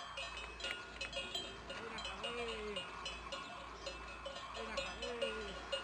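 Livestock bells clanking irregularly as the animals walk, several bells of different pitch ringing over each other. Twice a short low animal call rises and falls under the bells.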